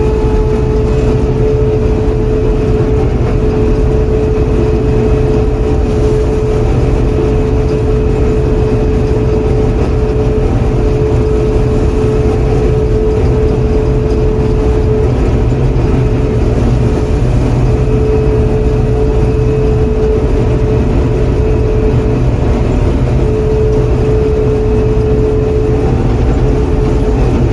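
John Deere 4400 combine running steadily with a constant whine over the engine noise.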